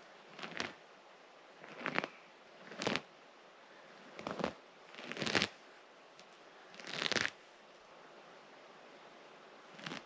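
Hands tearing up a mat of moss and lichen and scraping at the soil beneath, in about seven short rustling, crunching scrapes at irregular intervals, as in digging by hand.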